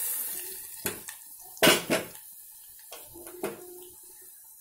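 Metal ladle clinking and scraping against the metal pot of tomato dal as it is stirred: a few separate clinks, the loudest a quick double about two seconds in. At the start, the sizzle of the hot tempering poured into the dal fades away.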